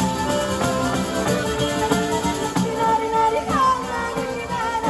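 Live band playing a taranta, southern Italian folk music from Puglia: a melody over plucked strings and a steady, even beat.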